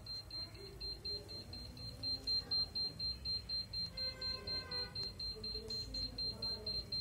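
An electronic beeper sounding a rapid, evenly repeated high-pitched beep, about four beeps a second, without a break.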